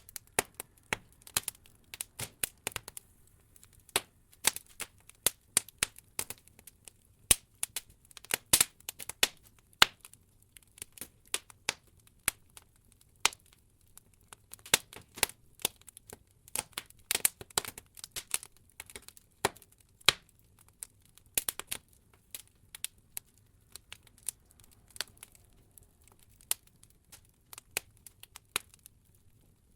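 Wood logs burning in an open fireplace, crackling with irregular sharp pops and snaps, some coming in quick flurries, over a faint low rumble.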